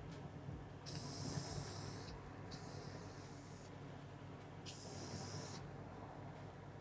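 Aerosol can of Aluma-Hyde II epoxy paint spraying in three separate hissing bursts of about a second each, over a steady low hum.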